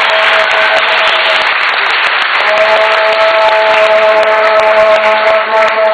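Crowd applauding and cheering loudly, with a steady held note sounding over the noise that breaks off for about a second near the two-second mark, then resumes.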